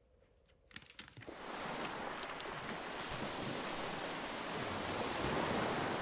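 A few faint clicks, then from about a second in a steady, even rushing noise like heavy rain or surf that holds to the end.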